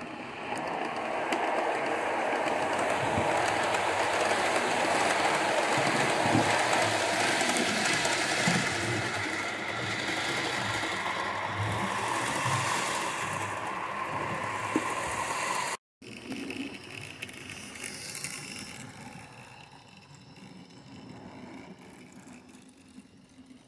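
OO gauge model train running along the track, a steady running noise with irregular clicking of wheels over rail joints and points as it passes close. It cuts off abruptly about two-thirds of the way in, and then another model train runs by more quietly and fades away.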